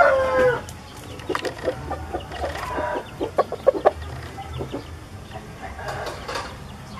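Caged Bangkok gamecock roosters. A crow trails off with a falling pitch in the first half second, then come short clucks, coming thickest between about three and four seconds in.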